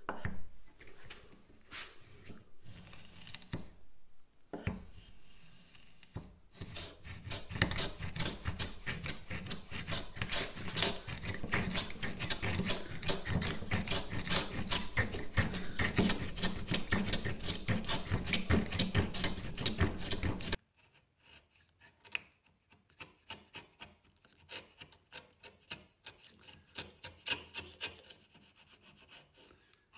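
Small metal plough plane cutting a groove along the edge of a hardwood strip: quick repeated shaving strokes that stop abruptly about two-thirds of the way through, followed by light clicks of the plane being handled.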